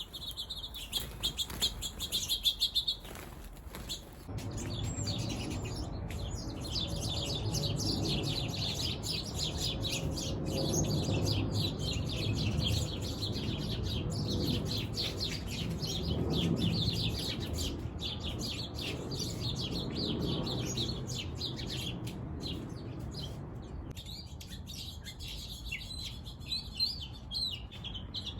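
Birds chirping in fast, dense runs of short calls, consistent with a squabble between birds, with a louder burst near the start. A low rumble sits underneath from about four seconds in.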